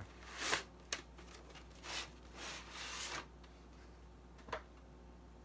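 Cardboard and plastic packaging of a Pokémon trading-card collection box rubbing and scraping as it is handled: several short rustles, with light clicks about one second and four and a half seconds in.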